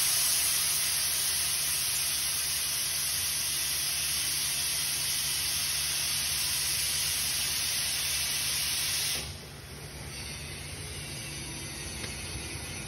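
A loud, steady hiss that cuts off sharply about nine seconds in, leaving a quieter low hum.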